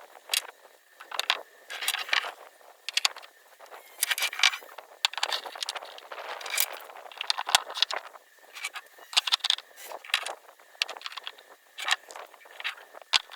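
Repeated irregular scraping and gritty rattling, in short uneven strokes.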